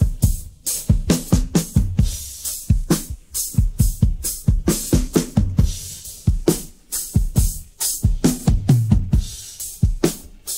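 Rock drum kit playing a steady groove of bass drum, snare and cymbals, heard on its own as a track split from a full studio mix by stem separation.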